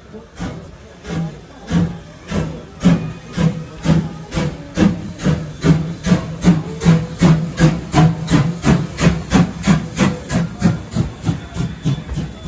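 C12-class steam tank locomotive No. 66 pulling away from a standstill, its exhaust chuffing in an even beat that quickens steadily as it gathers speed, with a hiss of steam beneath.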